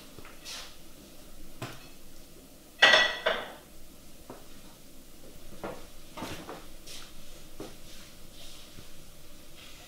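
Dishes and cutlery clinking and knocking at a kitchen sink as they are handled and set down, with one loud clatter about three seconds in and scattered lighter clinks after it.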